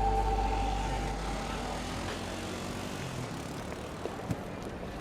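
A held low chord of background music dying away over the first second and a half, then steady background noise with a couple of faint clicks.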